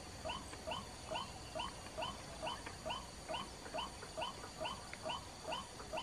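White-breasted waterhen call played from a lure speaker: one short hooked note repeated steadily, about two and a half times a second.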